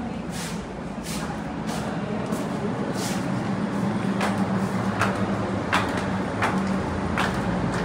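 Footsteps on a hard floor, evenly spaced at a little faster than one a second, over a steady low hum.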